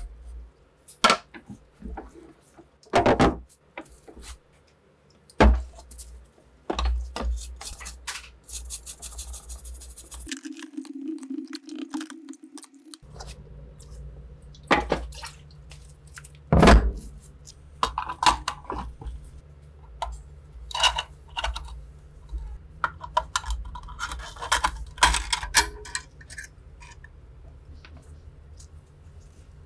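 Metal rifle parts and tools being handled and set down on a work mat. There are several sharp knocks in the first few seconds and another loud one a little past the middle, then lighter clinks and rattles of small parts toward the end.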